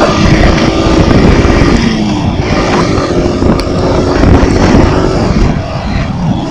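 Yamaha YTX 125's single-cylinder engine running hard as the motorcycle is pushed toward top speed, mixed with heavy wind rumble on the microphone.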